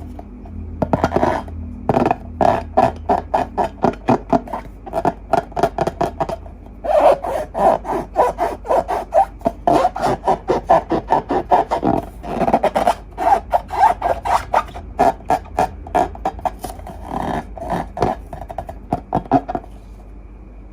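Hands working slime in a fast run of short rubbing, scraping strokes, about two or three a second. The strokes start about a second in and stop shortly before the end.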